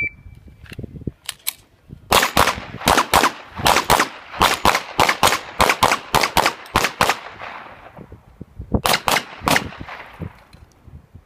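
Pistol shots fired in a competition course of fire: a short electronic shot-timer beep, a couple of faint shots, then a fast string of about twenty shots, a pause, and three more shots near the end.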